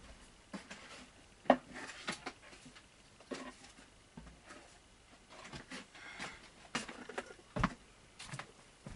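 Light clicks and knocks of small plastic toy trucks being handled and set down, with a few sharper knocks about one and a half seconds in and near the end.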